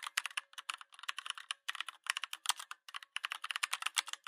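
Rapid, irregular light clicking and tapping, like typing on a keyboard, in quick clustered runs.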